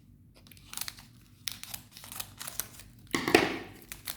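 Plastic wrapper of a chocolate bar being crinkled and torn open: scattered crackles, then a louder, longer tear about three seconds in.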